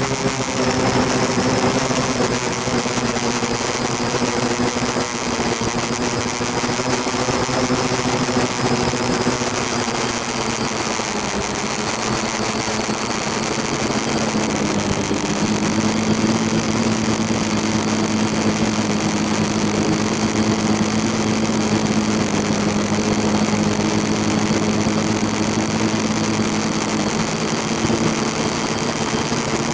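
Multirotor drone's electric motors and propellers running in flight, heard from the drone's own onboard camera as a steady buzzing whine whose pitch shifts and then holds steady about halfway through.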